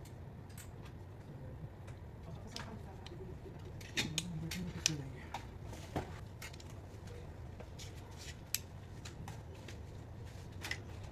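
Light, irregular clicks and taps of small hardware being handled, with a few sharper clicks about four to six seconds in and one near the end, over a steady low hum.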